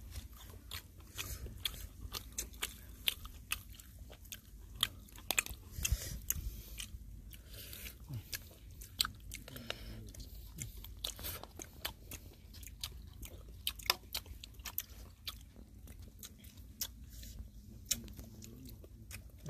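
A person chewing fried chicken gizzards close to the microphone, with a continuous run of quick, crisp, irregular crunches.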